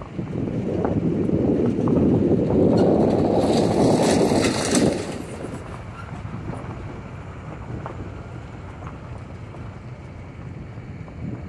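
Wind buffeting the phone's microphone: a heavy low rumble for the first five seconds, then a lighter steady rumble.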